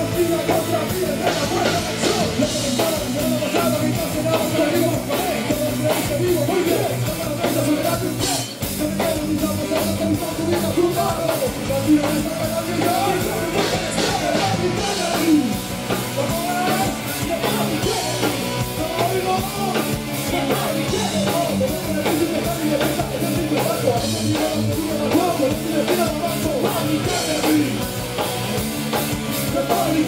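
Rock band playing live: electric guitar over a drum kit keeping a steady beat.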